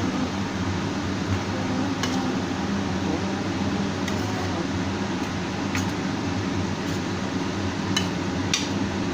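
Steady low hum with a handful of short, sharp clinks of utensils against dishes or pans, spread about a second or two apart.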